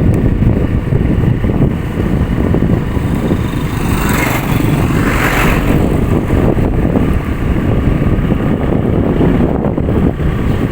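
Motor vehicle engine running while travelling along a road, with steady road and wind noise; a brief rise in hiss about four to five seconds in.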